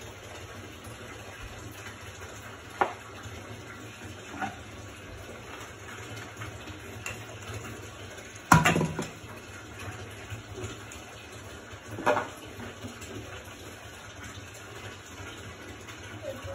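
Empty plastic milk jugs knocking as they are handled and fitted under a t-shirt to make a child's float vest: four sharp hollow knocks, the loudest about halfway through, over a steady low hum.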